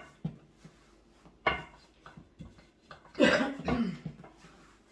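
A woman coughing: a short cough about a second and a half in, then a longer, louder cough with throat clearing about three seconds in.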